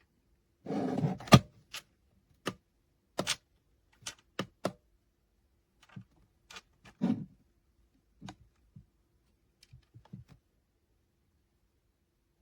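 Handling noise from a small plastic digital alarm clock: irregular sharp clicks and light taps, the loudest about a second and a half in, with a short rustle about a second in and another about seven seconds in.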